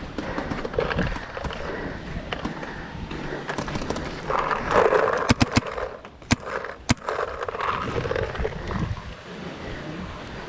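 Paintball player moving on foot, with footsteps and gear rustling throughout, and a short run of sharp pops a little past halfway.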